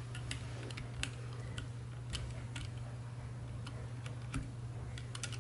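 Faint, irregular light clicks of a latch tool and the machine's metal latch needles ticking against the 3D-printed plastic cylinder of a circular sock knitting machine as skipped stitches are picked up by hand, over a steady low hum.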